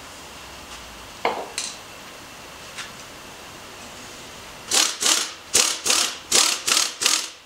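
Hand work on a mini motorbike's rear wheel and chain area: a short metallic scrape and a clink a little over a second in, then near the end a run of about eight quick back-and-forth rubbing strokes, about three a second.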